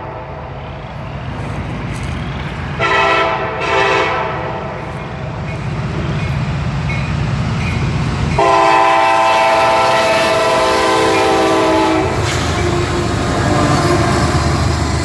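Freight locomotive horn giving two short blasts about three seconds in, then one long blast of about four seconds starting around eight seconds in, over the steady rumble of a passing intermodal freight train. The blasts are a friendly horn salute from the train crew.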